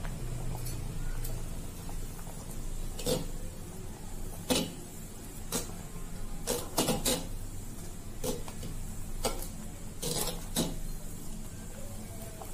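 A metal spatula stirring nearly cooked rice and moong dal in an earthenware pot, knocking against the pot's side about ten times at irregular intervals, some in quick runs of two or three. A steady low hum runs underneath.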